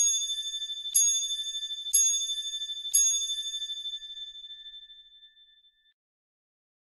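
A high-pitched bell struck four times on the same note, one stroke a second, each stroke ringing with a wavering shimmer; the last rings out and fades over about three seconds.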